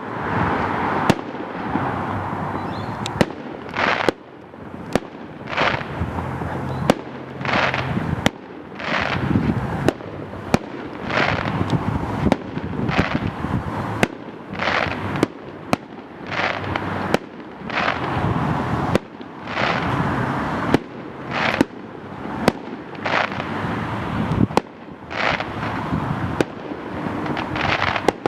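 Fireworks display: shells bursting in sharp bangs about once a second, with a continuous noisy hiss and rumble between the bursts.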